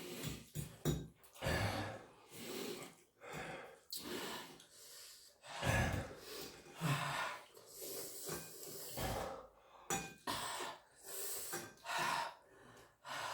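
Heavy, ragged breathing through the mouth with sharp gasps and hissing breaths, one every second or so, from someone trying to cool a mouth burning from extremely spicy ramen noodles.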